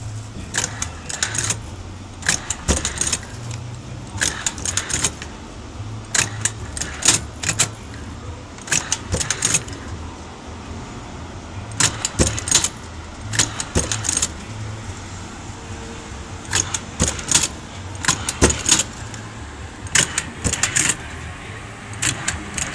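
Hand-operated dog tag embossing machine stamping a metal tag: quick clusters of sharp metallic clacks every one to two seconds as the lever is worked.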